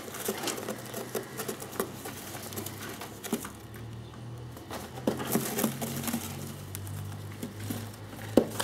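Budapest short-faced tumbler pigeons moving in a wire cage: irregular light clicks and taps of feet and beaks on the cage, the sharpest near the end, over low held cooing.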